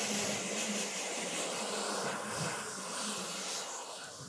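Water spray bottle misting the hair with a steady hiss, which fades out near the end; it is dampening the hair before a texturising spray goes on.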